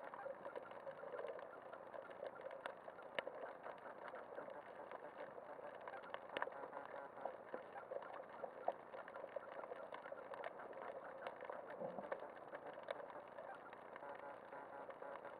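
Underwater ambience picked up by a submerged camera: a low, steady hiss with dense, irregular clicking and crackling.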